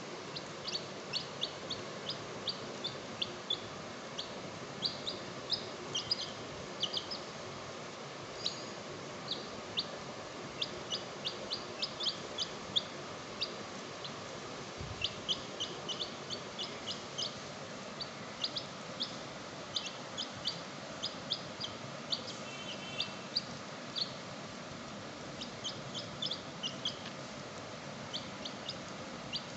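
Baby chicks peeping: short, high peeps, often in quick runs of several at a time.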